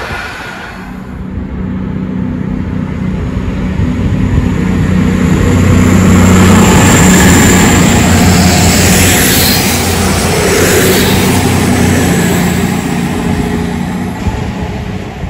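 A CrossCountry Voyager diesel-electric multiple unit running through a station, its underfloor diesel engines giving a steady low drone over the rail and wheel noise. The sound grows to its loudest about halfway through as the train passes close, then slowly fades.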